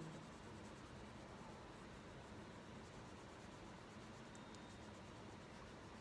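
Faint, steady scratching of a crayon rubbing back and forth on paper as it colours in an area.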